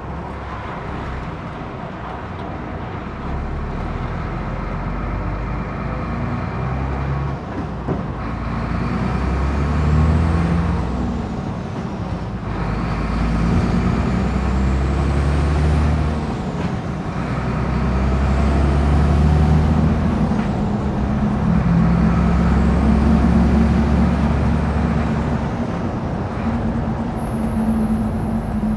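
Big truck driving, heard from inside the cab: a steady low engine and road rumble whose engine note swells and falls several times, with occasional metal knocks and rattles.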